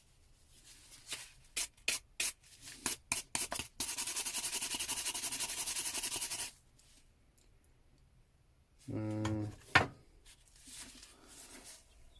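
A few sharp clicks and knocks of tools being handled, then a wire brush scrubbed fast and steadily on a copper hammer head for about two and a half seconds, cleaning it to read the stamped maker's mark. A short low sound and one sharp knock come about nine to ten seconds in.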